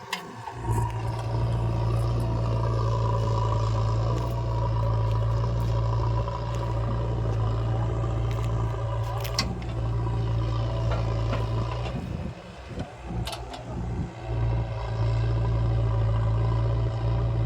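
Heavy diesel engine running steadily with a deep, even hum, cutting in suddenly just under a second in and easing off briefly about two-thirds of the way through, with a couple of sharp clicks.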